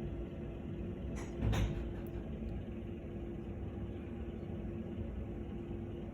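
Steady low mechanical hum with a faint held tone. A short bump about a second and a half in is the loudest moment.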